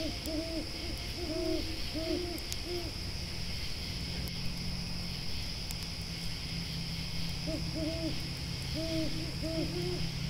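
An owl hooting in two runs of short, quickly repeated hoots, the second run beginning past the middle, over a steady high chirring of grasshoppers and a few faint crackles of a campfire.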